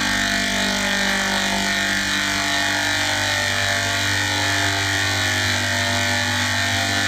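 Steady, unchanging electronic drone: many held tones stacked together over a loud hiss, a heavily processed sound effect.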